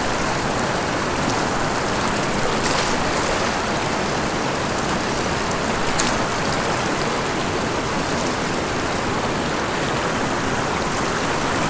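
Fast, shallow mountain stream rushing over rocks in a riffle: a steady, even rush of water, with a couple of faint ticks.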